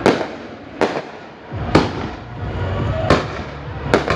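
Aerial fireworks bursting: a string of sharp bangs, five in all, each about a second apart, with low rumbling between them.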